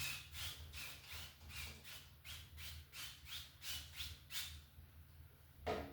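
A 1-inch house-painting brush stroking back and forth across a canvas of wet oil paint, with a rhythmic, squeaky scrape at about three strokes a second. The strokes stop after about four and a half seconds, and a single short bump follows near the end.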